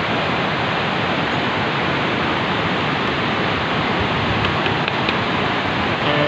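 Steady rush of fast-flowing river water, an even, unbroken noise.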